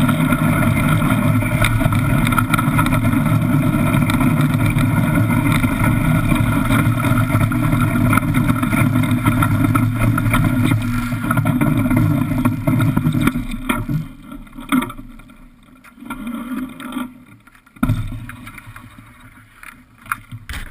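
Iceboat runners rumbling over the ice while the boat sails at speed, a loud steady noise with a few steady tones in it. About two thirds of the way through, the rumble dies away as the boat slows to a stop. A couple of sharp knocks follow.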